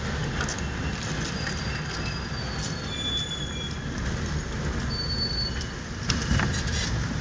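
A car moving slowly along a street, heard from inside the cabin: a steady low rumble of engine and tyres, with a few brief thin high-pitched tones now and then.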